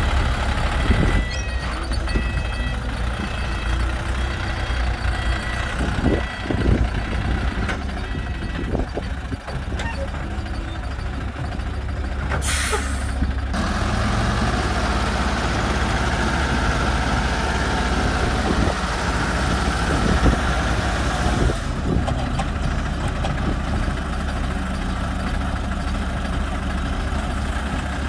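Diesel engines of a small sand-laden Hoa Mai dump truck and a mini excavator running under load as the bogged-down truck is worked through loose sand. The engine note grows stronger about halfway in. A high beeping repeats over the first several seconds, and a short hiss comes about halfway through.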